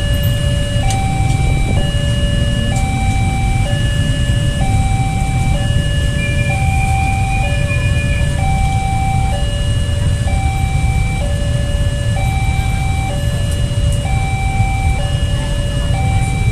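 Railway level-crossing warning signal sounding an electronic two-tone alarm, alternating between a lower and a higher pitch about once a second, which warns that the barriers are down and a train is approaching. Under it runs a steady low rumble of waiting traffic.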